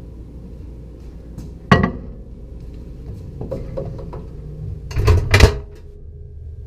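Knocks and clatter of a plate and a microwave door being handled: one sharp knock about two seconds in and a quick cluster of knocks and rattles near the end, over a steady low hum.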